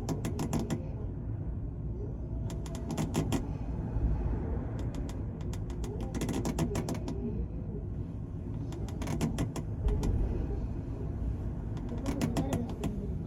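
The car ferry Kiso under way at sea: a steady low rumble from the ship's engines and hull. Short bursts of rapid rattling or clicking recur every two to three seconds.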